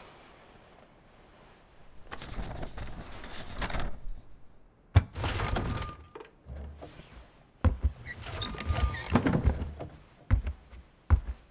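Audio-drama foley: sharp knocks and thunks about five seconds in, near eight seconds and twice near the end, with stretches of rustling noise between them.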